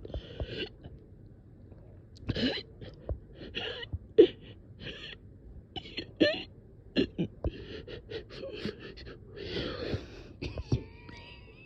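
A person struggling for breath, gasping in a series of breathy, uneven breaths broken by short sharp catches, with a thin whistling tone in the breath near the end. It is the labored breathing of someone who cannot get a deep breath.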